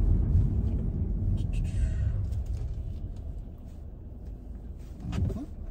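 Low rumble of road and engine noise inside a moving car's cabin. It eases off gradually through the middle and grows quieter towards the end.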